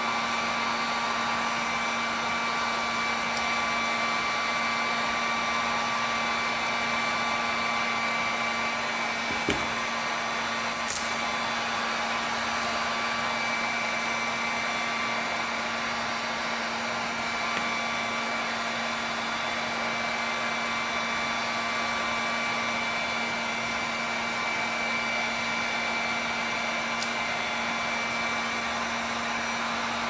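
Steady whir of an electric blower running with a constant hum, and a single light click about nine and a half seconds in.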